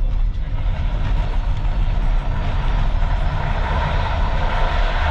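Car driving along a rough dirt track, heard from inside the cabin: a steady low engine and road rumble, with the road noise growing louder over the last couple of seconds.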